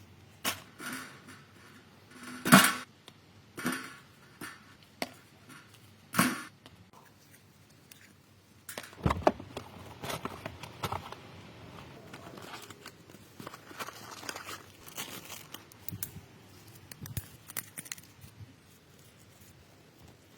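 Irregular knocks, clicks and rustling from tools and parts being handled: a few separate knocks in the first few seconds, the loudest about two and a half seconds in, then a busier patter of small clicks and rustles for much of the second half.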